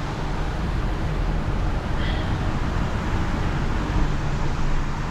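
Heavy recovery truck's diesel engine and road noise heard from inside the cab while towing, a steady low rumble.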